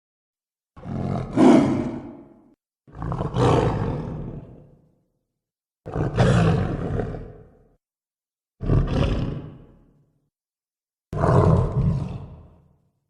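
Five separate creature roars, one after another, each about two seconds long, starting sharply and dying away, with silence between them.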